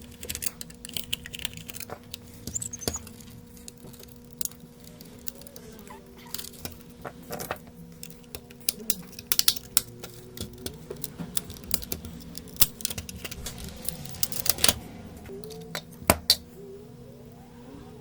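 Irregular small clicks and taps from handling tools and parts at a repair bench, bunched more thickly about halfway through and again near the end, over a steady low electrical hum.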